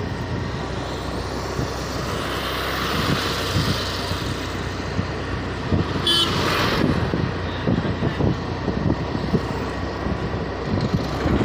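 Street traffic heard while riding on a two-wheeler: a steady rumble of engine and road noise with vehicles passing. About six seconds in there is a brief, louder burst of noise with a short high tone.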